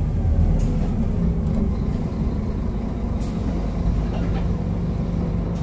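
Scania N230UD double-decker bus's five-cylinder diesel engine running as the bus drives, heard from the upper deck as a steady low rumble with a few light rattles. It cuts off suddenly near the end.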